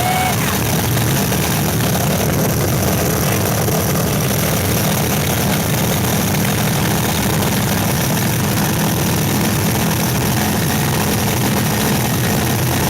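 302 cubic-inch V8 boat engine running steadily on its test firing, started by jumping the starter after a squirt of gasoline. It runs without faltering: the engine works.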